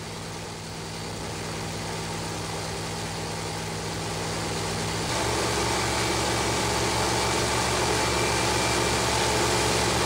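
Two V8-driven airplane propellers running as wind machines, the engine drone and rushing air growing steadily louder as they are pushed toward 115 mph. About five seconds in the engine pitch and the noise step up.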